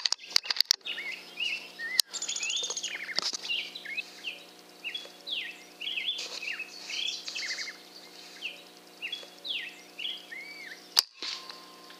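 Small birds chirping and singing, with a few sharp clicks in the first couple of seconds. About a second before the end comes a single sharp shot from an FX Impact PCP air rifle.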